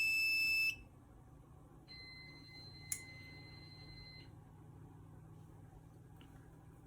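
Steady high electronic beep from the fire alarm system being reset, cutting off under a second in. After a pause, a second, quieter steady beep lasts about two and a half seconds, with a single click partway through.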